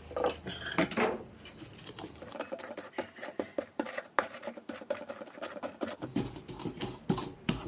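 Chillies and garlic being crushed fine for a chutney: a quick, irregular run of sharp knocks and taps.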